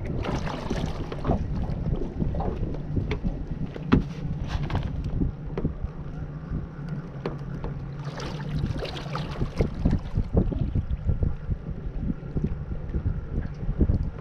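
Water slapping and knocking against the hull of a small fishing boat, with wind buffeting the microphone. Under it runs a faint low steady hum that fades about ten seconds in.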